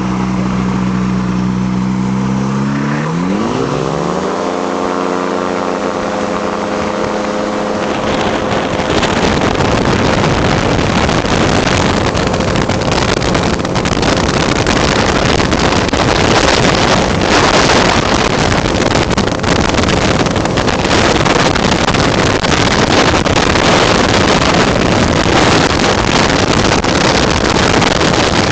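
Flex-wing microlight trike's engine running steadily, then opened up to take-off power about three seconds in, its pitch rising. From about eight seconds, as the trike rolls down the runway and climbs, loud wind rushing and buffeting the microphone covers the engine.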